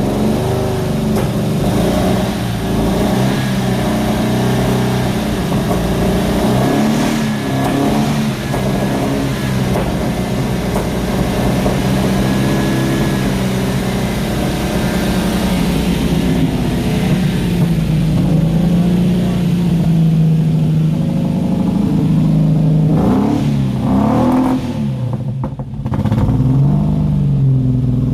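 Holden 202 straight-six engine of a VK Commodore running on its first start after more than eight years sitting, held at a steady fast idle and then revved up and down several times near the end to clear it out.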